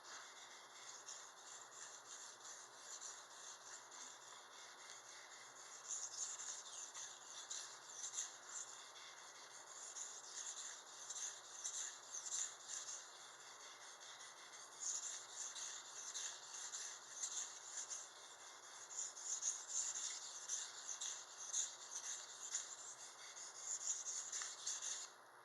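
Knife blade being sharpened, drawn in repeated short strokes across a sharpener with a scraping, rubbing sound. The strokes get louder about six seconds in.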